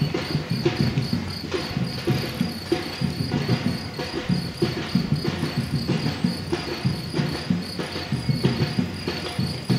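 Footsteps of many runners on an asphalt path: a dense, uneven patter of shoe strikes and scuffs, several a second. A steady, pulsing high chirp sits over them.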